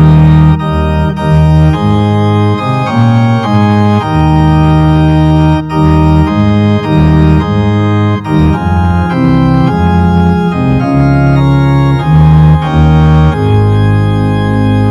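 Organ playing music in loud held chords that change every second or so.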